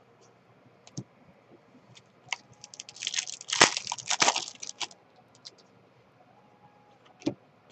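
Trading cards and packs being handled: a run of crackling and clicking from about two to five seconds in, with a few single clicks before and after.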